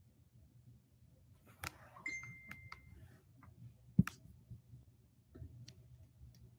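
Handling noise: scattered light clicks and taps, a thin steady high tone for about a second starting about two seconds in, and a sharp knock about four seconds in as the camera is picked up and turned.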